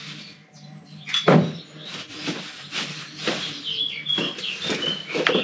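A litter picker rummaging through a black plastic bin bag of collected rubbish: rustling plastic and clicks, loudest just over a second in. Birds chirp near the end.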